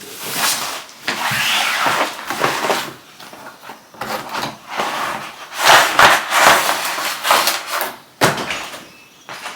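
Packaging and objects being handled and rustled by hand in irregular bursts of crinkling and scraping, with a sharp knock about eight seconds in.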